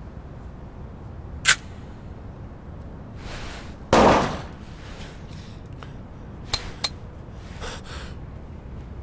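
Scattered sharp clicks and knocks over quiet room tone, with one louder, heavier hit about four seconds in and two quick clicks a little later.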